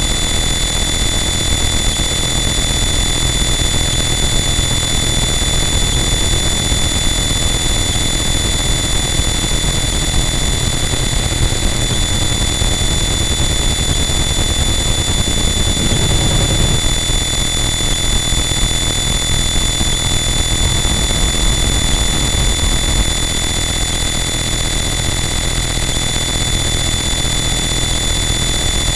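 Harsh noise wall: a loud, unchanging wall of dense distorted static, with steady high-pitched tones running through it. The low end swells briefly a little past halfway.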